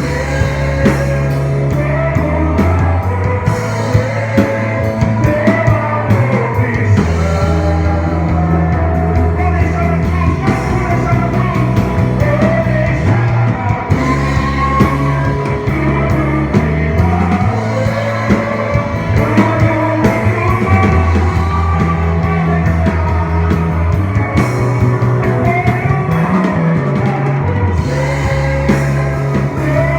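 Live worship band playing a rock-style song, with bass, drums and guitar and a singing voice over them.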